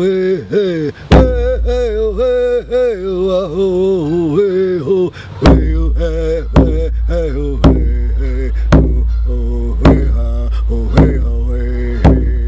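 A man singing a Native American chant without words, in long wavering held notes. One drum hit comes about a second in, then a steady drum beat about once a second from about halfway.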